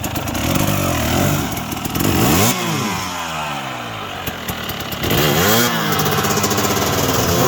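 Dirt bike engine revving up and falling back several times, with rises about a second in and again around five and a half seconds, and a long falling rev between them.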